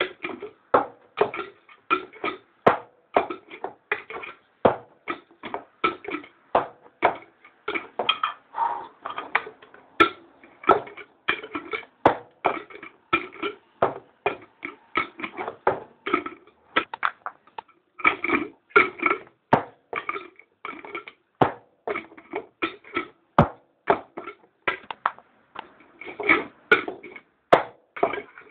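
Glass jar and its lid knocked and clinked over and over as the jar is being closed, about three sharp knocks a second in an uneven rhythm, each with a short glassy ring.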